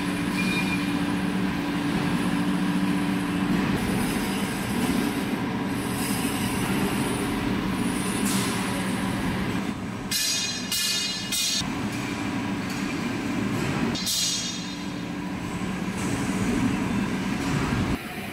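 Metal lathe running and facing the cast-iron friction face of a clutch pressure plate: a steady machine hum under a hissing cut. Twice, about ten and fourteen seconds in, the cut turns into a brief high-pitched screech.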